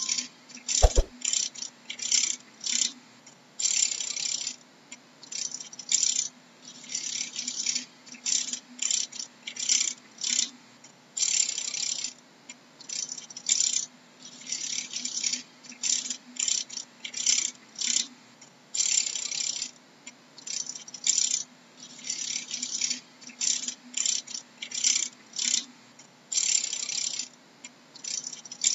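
Dragonfly wings making a dry, rasping rattle in short irregular bursts, about one to three a second, some brief and some lasting nearly a second.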